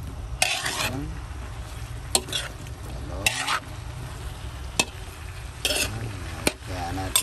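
Metal spatula scraping and knocking against a wok while stir-frying vegetables and pork, a stroke every second or so, over a low steady rumble.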